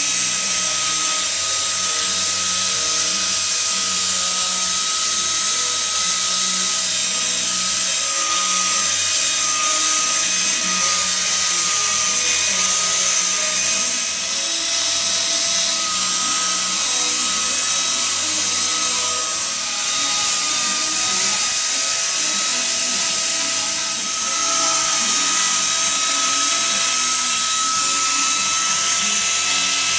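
Arbortech angle grinder with a carving attachment running steadily with a high whine, dipping briefly a few times as it works the wood.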